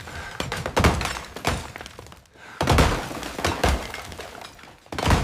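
Sledgehammer blows breaking up wet plaster, a series of heavy thuds about one a second, each with a crack of material giving way and debris crumbling after it.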